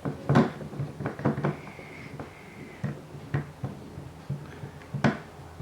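Plastic toy parts being handled, with a few scattered clicks and knocks.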